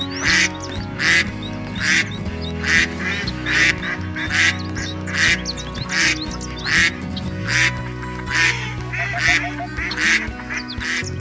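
Duck quacking over and over, a loud quack roughly every second, with faint high chirps between the quacks.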